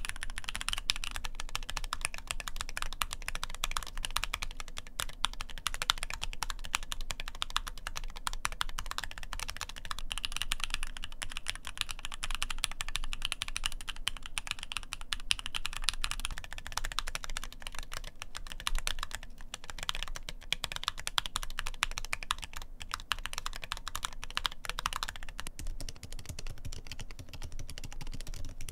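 Fast continuous typing on a Keychron Q8 mechanical keyboard with Gateron Brown tactile switches and ordinary plastic keycaps: a dense, fairly high-pitched clacking of keystrokes. Near the end the typing moves to a split Corne keyboard with Kailh Midnight Silent tactile switches and sounds duller and quieter.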